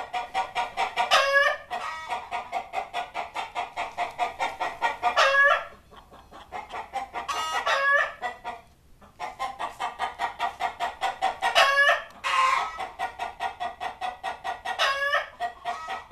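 Chickens clucking in a rapid unbroken train, about five clucks a second. About every three or four seconds a loud squawk breaks in, five in all, and the clucking dips briefly twice.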